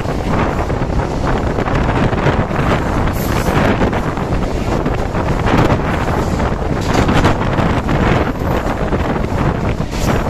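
Wind buffeting a microphone held out of a fast-moving train's window, over the steady rush and rumble of train wheels on the rails, with gusts coming and going.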